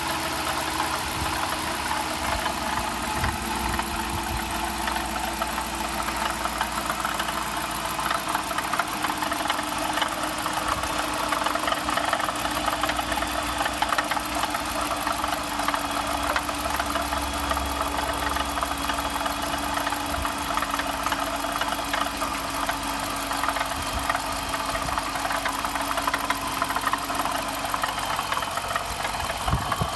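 2015 Dodge Durango R/T's 5.7-litre HEMI V8 idling, with a steady, fast rattling under the hood that its owner cannot yet trace, heard close to the engine bay.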